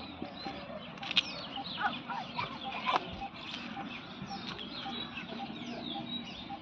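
Birds chirping and twittering, with a low note repeated about twice a second underneath. Two sharp clicks come about one and three seconds in.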